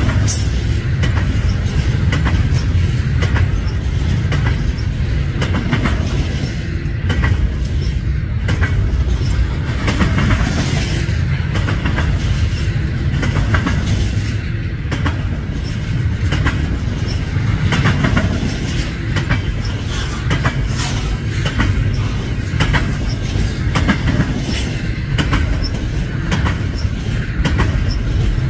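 Double-stack freight cars rolling past at track side: a steady low rumble of the train, with the wheels clicking and clacking over the rail joints.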